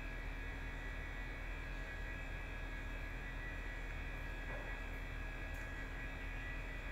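Steady low hum with a faint steady high tone over it: room tone.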